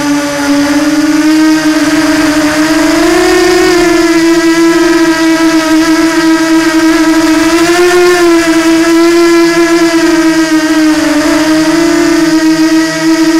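Electric motors and propellers of a radio-controlled FPV drone in flight, a loud steady buzzing whine whose pitch rises slightly a few seconds in and again past the middle, then dips briefly near the end.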